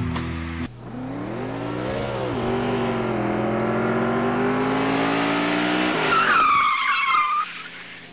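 Guitar music cuts off under a second in, giving way to a car-engine sound effect that revs up and down, then runs steadily. About six seconds in it ends in a tire screech that fades out.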